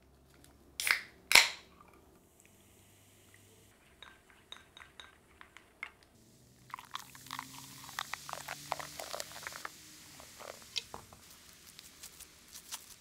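Two loud, sharp bursts about a second in, then Diet Coke fizzing in a ceramic bowl, with wooden chopsticks tapping and clinking against the bowl as the soda is stirred.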